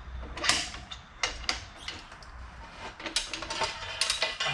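Motorcycle tire being levered off its rim on a manual tire changer: irregular scrapes, creaks and sharp metal clicks as the bar works the tubeless tire's bead over the rim edge.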